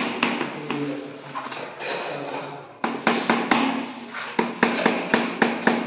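Hammer tapping on a PVC wall panel as it is fitted, a quick run of sharp knocks, about three or four a second, starting about halfway in.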